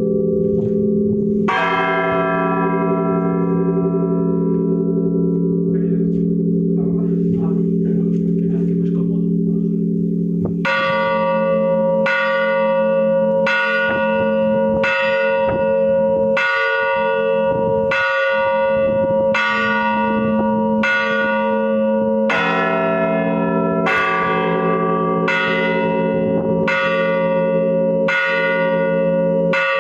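Large bronze cathedral bells tolled by hand, the clapper pulled on a rope, ringing the traditional death toll for a Pope. One stroke hums on for several seconds. After about ten seconds a slow, steady tolling begins, a stroke about every second and a half, and a differently pitched bell joins about two-thirds of the way through.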